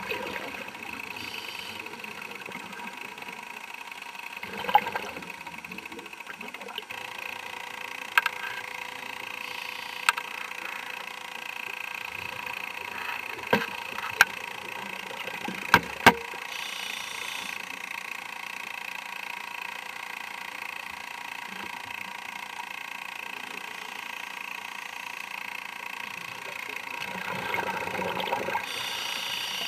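Underwater recording from a diver's camera: a steady mechanical hum made of several fixed tones, with about seven sharp clicks and knocks in the first half and a broader swell near the end.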